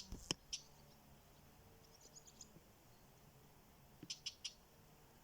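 A few short, high-pitched chirps from a small animal, in quick groups of two to four, against near silence.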